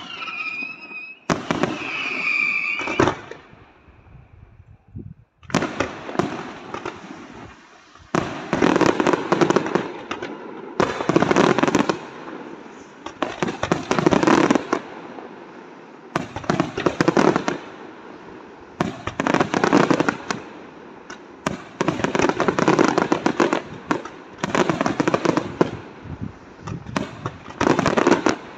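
Aerial fireworks display: a high whistling tone and a few bangs in the first seconds, a short lull, then from about five seconds in a dense run of shell bursts, clusters of sharp bangs every second or two.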